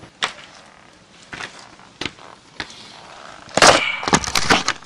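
Metal clinks and knocks from handling a motorcycle steering stem and its head bearing on a workbench: a few separate clicks, then a loud burst of clattering with brief ringing near the end as the stem is picked up.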